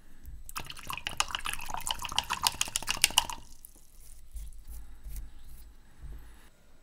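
Liquid being agitated in a small container: rapid clicking and sloshing for about three seconds, starting about half a second in, followed by fainter small handling noises.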